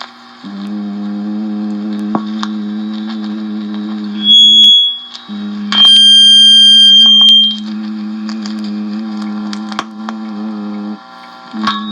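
A person humming a steady low note, with short breaks near the start, just before halfway and near the end. Twice, about four seconds in and again about six seconds in, a loud, piercing high-pitched tone sounds; the second lasts about a second and a half over the hum and is the loudest sound.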